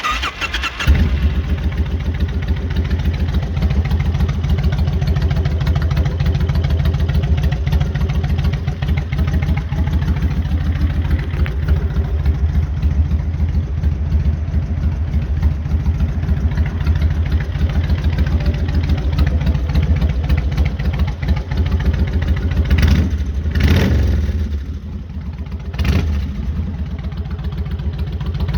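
Kawasaki Vulcan 1500 Classic V-twin engine idling with a deep, steady rumble. About 23 s in there is a brief louder surge, then the idle settles a little quieter.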